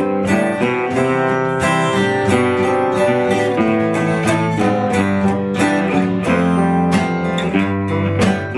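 Live band playing an instrumental passage led by strummed acoustic guitar, with no singing.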